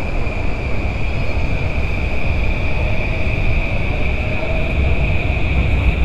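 A train running over the steel-girder elevated railway overhead: a steady, loud low rumble with a steady high-pitched tone above it.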